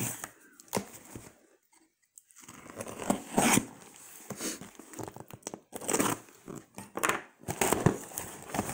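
Packing tape being slit and ripped off a cardboard parcel and its flaps pulled open: a series of short tearing and scraping strokes of tape and cardboard, with a brief pause about two seconds in.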